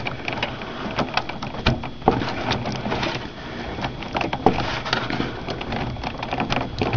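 Irregular clicks, taps and rubbing of fingers handling a desktop RAM module as it is lined up and pushed into the motherboard's memory slot, close to the microphone.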